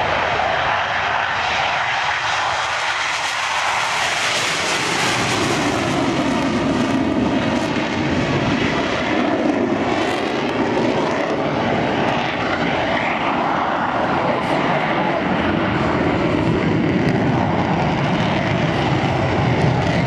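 Two F/A-18 Hornet fighter jets with their twin F404 turbofans in afterburner on a take-off run and climb-out, a loud, steady rushing jet noise. The noise sweeps up and down in pitch as the jets pass by and climb away.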